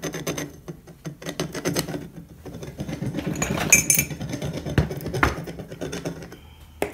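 Metal hand tools clinking and clattering on a wooden workbench as they are handled and set down, with a brief metallic ring about halfway through and a sharp knock near the end.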